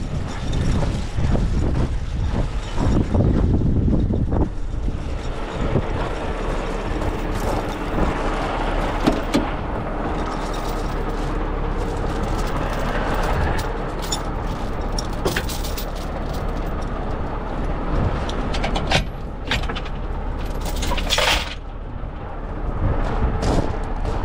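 Heavy tow truck's diesel engine idling steadily, with footsteps crunching on gravel and a few sharp clanks near the end.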